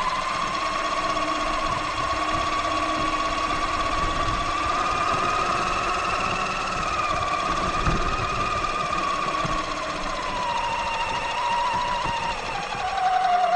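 Axial Yeti XL RC truck's electric drive motor whining steadily as the truck drives, its pitch rising and falling gently with speed. Under it runs a low rumble and rattle from the wheels and chassis over rough ground.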